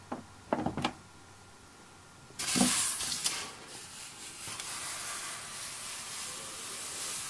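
A few light knocks, then from about two and a half seconds in a steady hissing rub of a hand moving over a styrofoam block.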